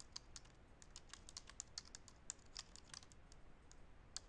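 Faint typing on a computer keyboard: a quick, irregular run of keystrokes, several a second.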